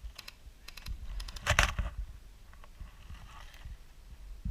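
Airsoft rifle firing short bursts of rapid clicky shots, the loudest burst about a second and a half in.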